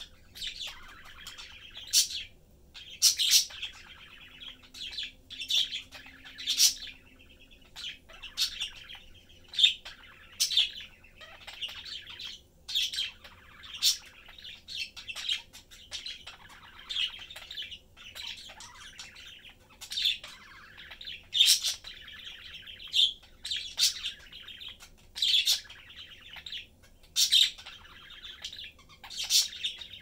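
Pet budgerigars chattering: a continuous soft warble broken by sharp, loud chirps every second or two.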